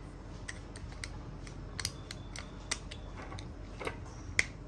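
Scattered small clicks and taps of a Range Rover remote key fob being handled and clipped back together, about six sharp clicks at irregular spacing, the loudest near the end.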